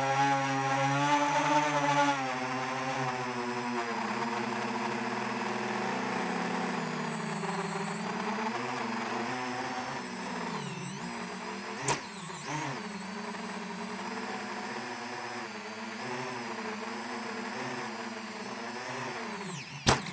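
Motors and propellers of a 7-inch FPV quadcopter whining, heard from its onboard camera, the pitch rising and falling with the throttle. A sharp click about twelve seconds in, and a few knocks near the end as the quad comes down on the ground.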